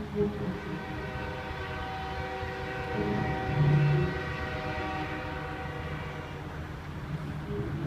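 A distant train's long, drawn-out tone with many overtones, swelling in about a second in and fading away near the end, over a steady low rumble that briefly grows louder in the middle.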